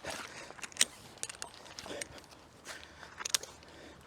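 Climbing gear and rope handled during a tree climb: scattered light clicks and rustles, sharpest about a second in and again near the end.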